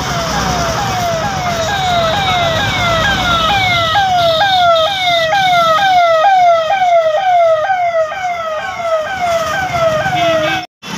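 Police vehicle siren sounding in quick repeating sweeps, about two or three a second, over road traffic noise. It cuts off suddenly near the end.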